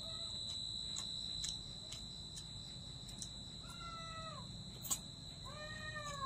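A cat meowing: a short meow about four seconds in, then a longer drawn-out meow starting near the end. A few sharp clicks, the loudest about five seconds in, and a steady high-pitched whine run underneath.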